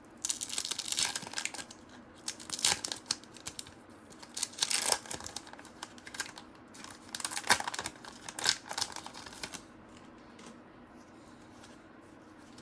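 Paper trading cards being handled and flipped through, rustling and crinkling in irregular bursts that stop about ten seconds in.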